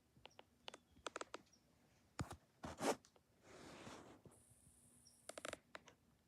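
Clicks and taps from a sunrise alarm clock being handled and its buttons pressed, coming in small clusters, with a short rustle about halfway through.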